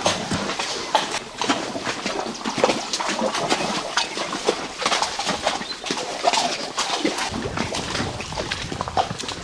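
Horses' hooves clopping as they walk, a run of irregular knocks.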